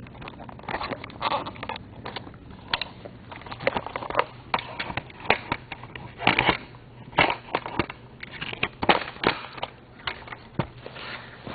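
Handling noise: irregular clicks, knocks and rustles from objects being picked up and set down, with a dozen or so sharp taps scattered through and no steady rhythm.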